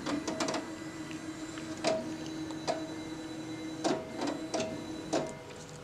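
Panasonic DP-8045 digital copier running a copy job: a steady motor hum with a series of sharp clicks and clacks as it scans and prints the reverse side of a sheet fed through the bypass tray.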